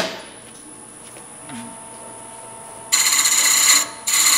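A sharp click, then a wood lathe running with a steady high whine. About three seconds in, a turning tool bites into the spinning wooden bell blank with a loud rasping cut, stops briefly, and cuts again.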